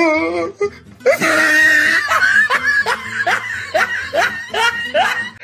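Loud laughter in quick rising bursts, about two to three a second, starting about a second in after a drawn-out, wavering vocal sound.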